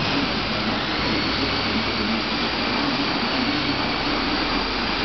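Steady loud rushing machine noise with a low hum under it, unchanging throughout.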